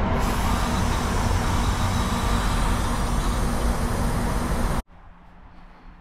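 Nitrogen hissing steadily through the refrigerant gauge hose into the line set as the heat pump system is pressurized for a leak test, with a rough low rumble under it. The hiss cuts off abruptly about five seconds in, and only faint room sound follows.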